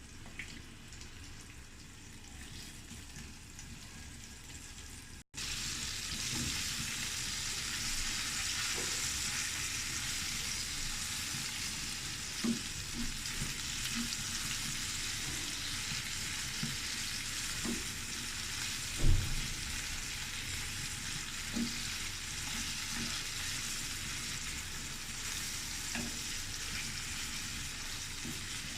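Prawns coated in egg and cornflour frying in hot oil in a karai: a steady sizzle, quieter for the first five seconds, then louder after a sudden break. A few short utensil knocks against the pan, the loudest about two-thirds of the way through.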